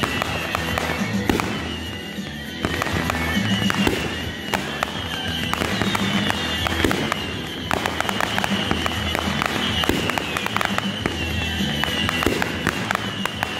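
Fireworks display: a continual run of sharp bangs and crackles from aerial shells and crackling stars bursting, over music playing for the pyro-musical show.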